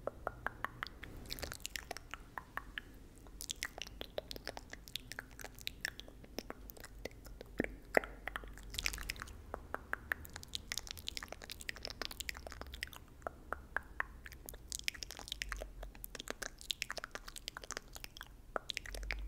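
Close-miked ASMR mouth sounds: quick, irregular wet clicks and smacks, many per second, with short pauses between runs.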